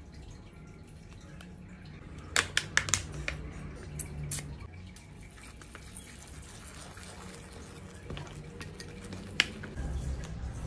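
Handling sounds around a glass baking dish: a quick run of sharp clicks and taps about two seconds in, and single ones later. Near the end, water starts pouring from a plastic bottle into the dish.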